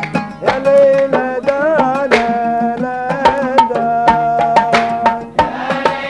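Kuwaiti sawt music: a man sings a wavering, ornamented melody with the oud, over a busy beat of mirwas hand drums.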